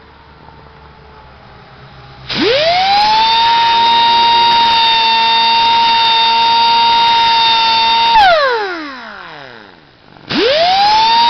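Small electric grinder switched on about two seconds in, its whine climbing quickly to a steady high pitch. After about six seconds it is switched off and winds down in falling pitch, then starts up again near the end. It is being used to grind down the rakers (depth gauges) of a chainsaw chain.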